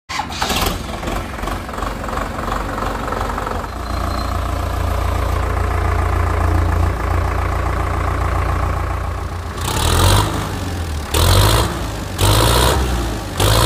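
ACE DI 65 tractor's 4088 cc diesel engine idling steadily, then revved in four short bursts about a second apart near the end.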